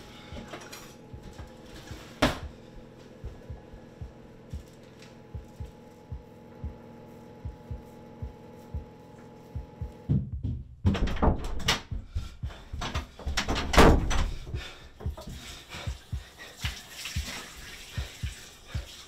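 Steady low hum with soft regular ticks and a single click about two seconds in, then a knife slicing through raw meat, loudest about four seconds later. Near the end, water running from a tap into a bathroom sink.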